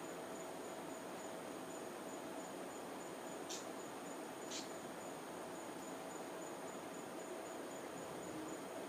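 Faint crickets chirping: a steady high trill with a pulsing chirp repeating a few times a second, and two brief louder chirps about halfway through.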